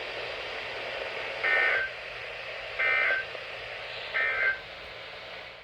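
Emergency Alert System end-of-message signal: three short bursts of SAME data tones, about a second and a half apart, over a steady hiss.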